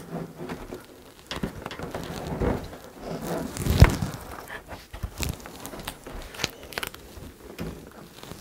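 Knocks, clicks and rubbing of a large flat-screen TV being handled and maneuvered against the metal brackets of a full-motion wall mount, with one heavier knock about four seconds in.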